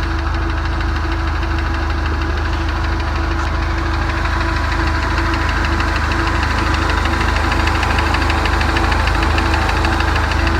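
2017 Ford Mustang's 2.3-litre EcoBoost turbocharged four-cylinder running steadily with a fast, regular knocking tick, which the owner takes for engine knock.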